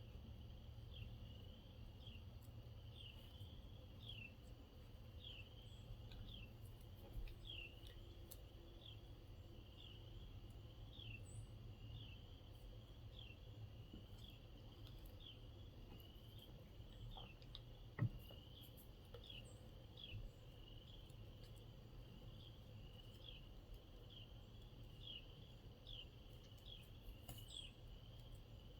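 Faint outdoor quiet with a small creature's chirp, a short falling note, repeated steadily a little more than once a second. One sharp knock about eighteen seconds in.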